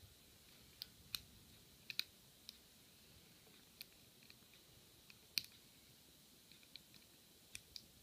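Faint, irregular clicks of a lock pick and tension wrench working the serrated and spool pins inside a keyed Sesamee padlock, about a dozen scattered ticks with the sharpest about halfway through. The lock is held in a false set from a spool pin while the pins are probed.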